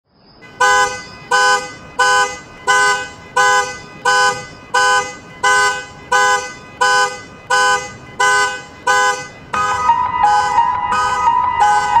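Car alarm sounding its horn in short, evenly spaced blasts, about three every two seconds. About nine and a half seconds in, a steady higher tone joins under the blasts.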